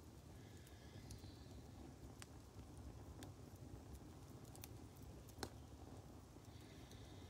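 Near silence with the faint, sparse crackling of a wood fire in a fire bowl: a few isolated sharp pops, the loudest a little over five seconds in, over a low steady rumble.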